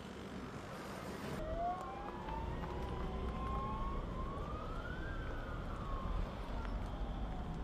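Sirens wailing, slowly rising and falling in pitch, with two wails overlapping. They come in about a second and a half in, over a low steady rumble of wind or distant traffic.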